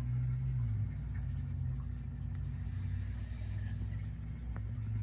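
A steady low motor rumble, easing slightly about a second in, with a few faint clicks.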